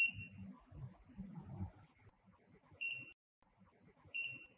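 Operation panel keypad of a HighTex 71008R rope bar tacking sewing machine beeping as its number keys are pressed to select the pattern number: three short high beeps, one at the start, then two more about three and four seconds in, with faint taps from the keys between them.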